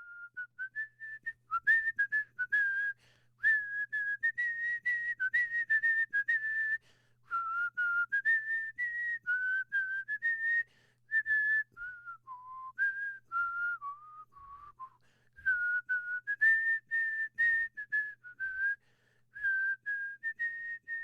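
A person whistling a tune in clear, short notes that step up and down in pitch, with a few brief pauses between phrases. A faint steady low hum sits underneath.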